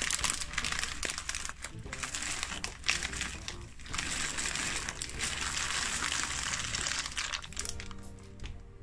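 Plastic pasta bag crinkling as dry tube pasta is poured from it into a pot of boiling water, a busy patter of small clicks and rustles. The crinkling dies away near the end and steady tones take over.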